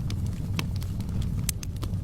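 Fire burning in a fireplace: a steady low rumble of flames with scattered sharp crackles and pops, about four in two seconds.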